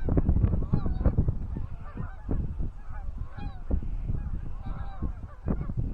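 Many short goose honks, rapid and overlapping, with heavy low wind rumble on the microphone beneath them.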